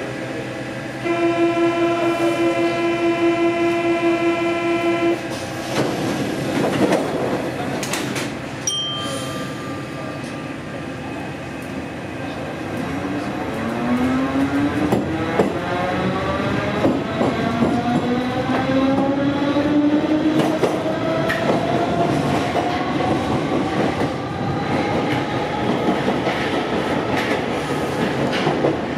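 MF67 Métro train at a station: a steady electric buzzer sounds for about four seconds, a few sharp knocks follow as the doors shut, and then the traction motors whine, rising in pitch as the train accelerates away, over the rumble and rattle of the wheels on the rails.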